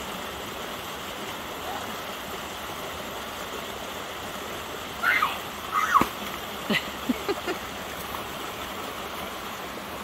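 Shallow rocky creek babbling steadily over stones. Between about five and seven and a half seconds in comes a short cluster of brief sounds, the loudest a single sharp knock about six seconds in.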